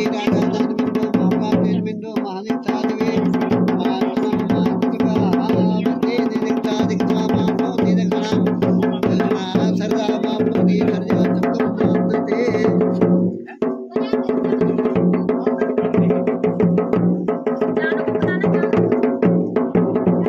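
Music with drums and percussion and a steady beat. It breaks off briefly about thirteen seconds in.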